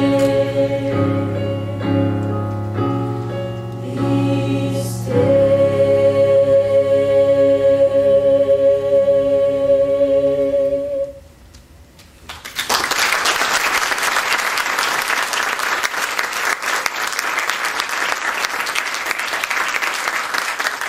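Mixed choir singing the closing chords of a choral piece, the last chord held for about six seconds before it cuts off. After a brief silence the audience bursts into applause, which carries on to the end.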